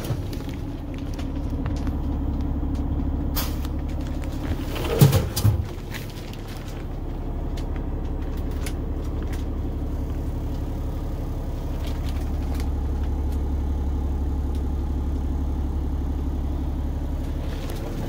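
Peterbilt 389's Cummins X15 diesel engine idling steadily, heard from inside the sleeper. A few sharp knocks and clatters in the first six seconds come from the fridge kit's steel drawer and fridge door being handled.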